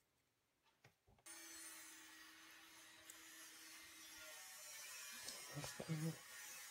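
A few faint clicks of small plastic parts being handled as a steering-column light switch is put back together. About a second in, a steady hiss of background noise starts suddenly.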